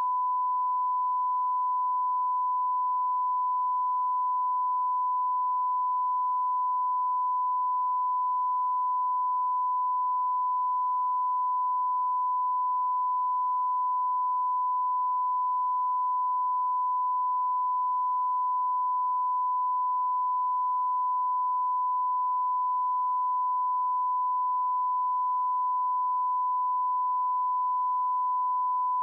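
A steady 1 kHz sine reference tone, the line-up tone that runs with colour bars at the head of a broadcast tape for setting audio levels.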